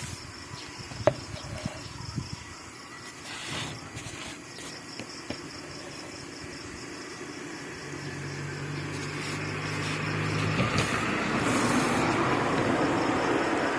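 A passing motor vehicle: a low engine hum, then its noise swells and eases off, after a few scattered light clicks and knocks.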